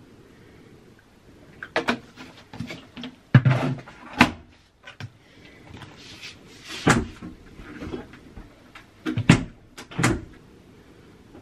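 Handling noises while a washing machine is loaded: a plastic detergent bottle and its cap knocking against the machine, and the detergent drawer being pushed shut. A scattered run of sharp clicks and knocks, about ten over several seconds, with the heaviest knock about three and a half seconds in.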